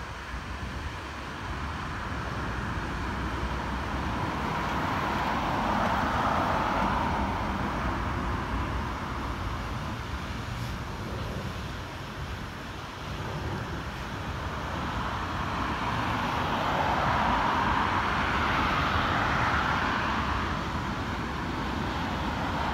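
Outdoor road-traffic noise, a steady hiss and rumble that swells twice: once about six seconds in and again, longer, near the end.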